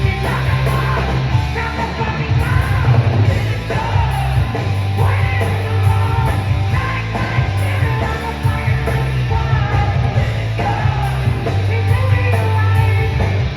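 Live heavy metal band playing loudly, with distorted guitars, pounding bass and drums, and a male lead singer shouting and singing over it.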